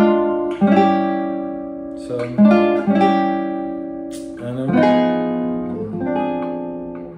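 Nylon-string classical guitar playing a slow run of about five chords, each struck and left to ring out before the next.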